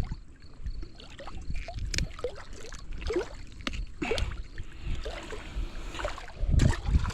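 Wind rumbling on the microphone over water lapping at a small boat, with a few short knocks from handling.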